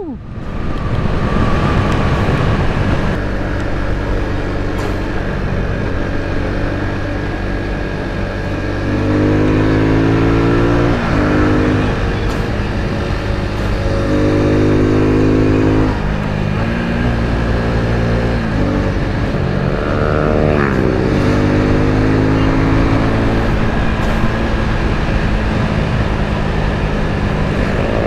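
Suzuki Gixxer 250's single-cylinder engine pulling under load while riding, its pitch climbing and dropping back sharply at each upshift, several times over.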